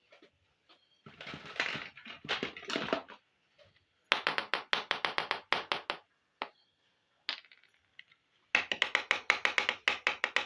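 Small plastic miniature toy kitchen pieces being handled: a soft rustle, then two quick runs of light, sharp clicks, several a second.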